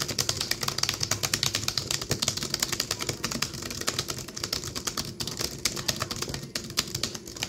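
Fast typing on an HP laptop's chiclet keyboard: a quick, uneven stream of plastic key clicks, many strokes a second.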